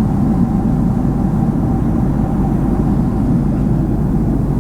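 Steady low rumble inside an airliner cabin, with a faint steady hum above it.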